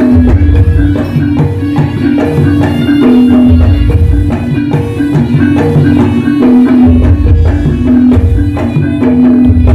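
Javanese jaranan ensemble playing: hand-beaten kendang barrel drums keep a quick, driving rhythm over gongs and repeated pitched percussion notes.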